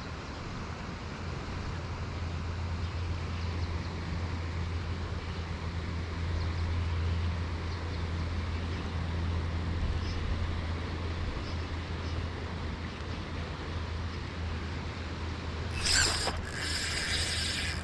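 Steady low rumble of the river and wind on the microphone. Near the end comes a short rasping swish, then a buzzing that runs on, fitting a fishing reel's drag giving line as a trout takes the lure.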